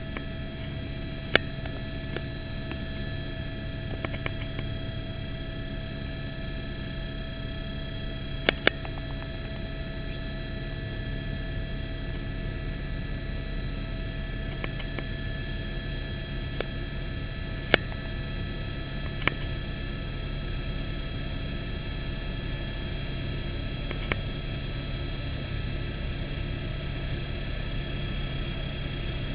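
Helicopter in flight, heard from inside the cabin: a steady drone with steady high-pitched whining tones above it. A few sharp clicks are scattered through.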